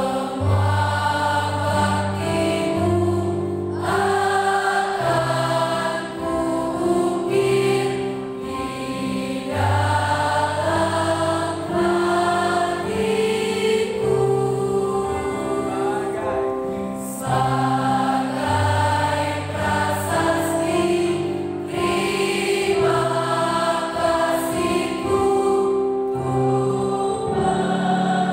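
Mixed choir of women and men singing a slow song in several parts, with long held notes.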